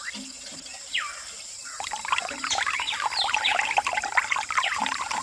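A thin stream of water from a miniature hand pump's spout splashing into a small water-filled tank, starting about two seconds in. Before it, two short falling chirps.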